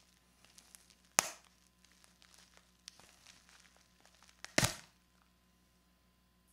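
Dull chisel hacking and prying at a pedal's shipping packaging: two sharp cracks, about a second in and again near four and a half seconds, with small clicks and crinkling of the packaging between.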